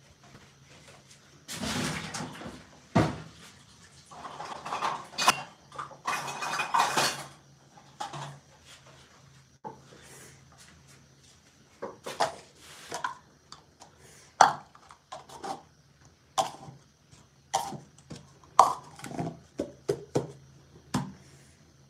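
Small hard objects being handled close to the microphone: rustling mixed with knocks about two seconds in and again from about four to seven seconds, then a scattered run of short, sharp clicks and knocks through the second half.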